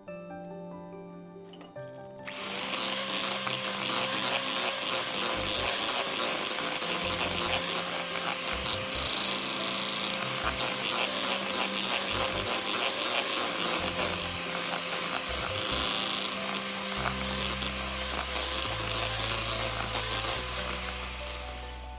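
Electric hand mixer running, its twin beaters whipping a cream cheese filling. The motor's steady whine starts about two seconds in and eases off near the end, over background music.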